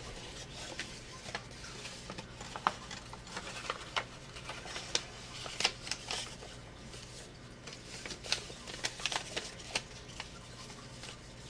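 Paper being folded and creased by hand: irregular rustles, crinkles and light taps as the sheet is bent along its score lines and pressed flat.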